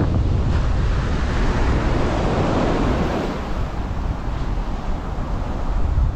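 Ocean surf breaking and washing up a sandy beach, one wave surging in louder about two to three seconds in, with wind buffeting the microphone.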